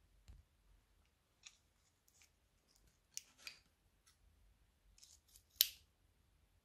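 Scissors snipping the tip off a filled plastic piping bag, amid the crinkle of the plastic as it is handled. A handful of short, crisp snips and rustles, the loudest about five and a half seconds in.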